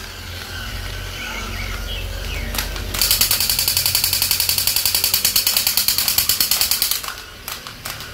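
Battery-operated crawling-soldier toy firing its electronic machine-gun sound: a fast, even rattle of about nine shots a second that starts about three seconds in, lasts about four seconds and stops sharply. Scattered clicks follow.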